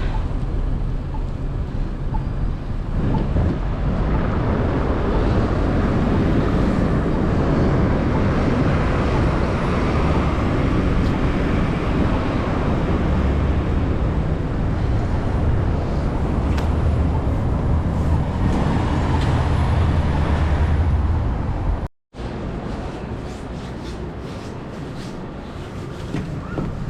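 Snowstorm city street noise: steady traffic rumble mixed with wind buffeting the microphone, heaviest in the middle. The sound cuts out for an instant about 22 seconds in and comes back quieter.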